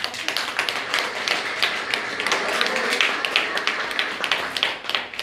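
Applause from a small group of people clapping their hands, a dense, irregular patter of claps.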